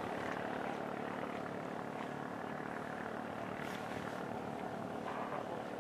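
An engine droning steadily at an even pitch.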